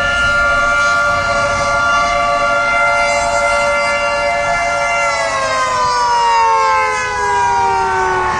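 Outdoor tornado warning siren sounding during a tornado warning: a steady, loud, multi-tone wail that begins to wind down about five seconds in, its pitch sliding slowly lower.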